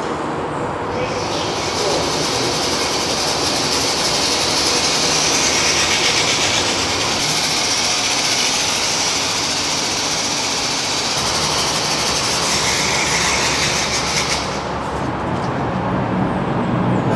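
Vaterra Slickrock RC rock crawler driving across a tile floor: its electric motor and gear drivetrain give a steady high whir. The whir starts about a second in and cuts off about three seconds before the end, when the truck stops.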